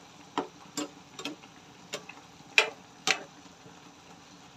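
A metal ladle clicking against a nonstick pan as a saucy pork-and-onion dish is stirred: about seven short, uneven taps over the first three seconds, then the stirring stops.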